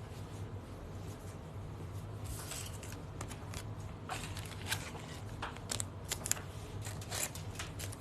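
Trading cards and pack wrappers being handled: scattered light rustles, slides and ticks over a steady low hum.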